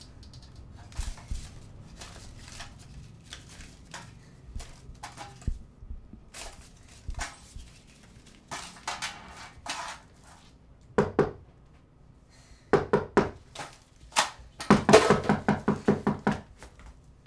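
A metal tin box being handled on a wooden table: the lid clicking and scraping, paper banknotes rustling as they are taken out and thumbed through. Near the end comes a quick run of about eight thumps.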